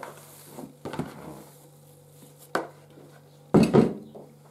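Bread dough being turned out of a plastic mixing bowl onto a kitchen worktop: a few light knocks and handling sounds, then a louder thud about three and a half seconds in.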